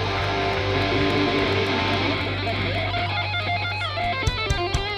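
Electric guitars ringing out sustained notes and chords through amplifiers over a steady low bass drone, with some sliding notes and a few sharp hits near the end.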